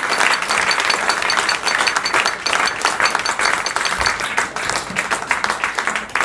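Concert audience applauding, a dense wash of many hands clapping that thins out near the end into scattered single claps.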